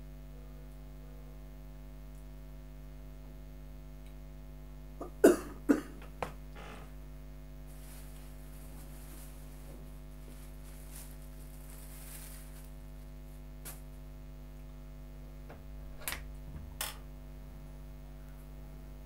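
Steady electrical mains hum, broken by a few short sharp sounds: a loud cluster of two or three about five seconds in and two softer ones near the end.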